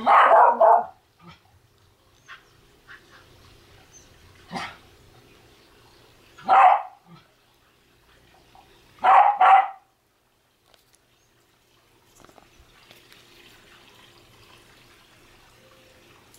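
Welsh terrier barking in short bursts: a loud bark at the start, single barks a few seconds apart, and a quick double bark about nine seconds in, then it falls quiet.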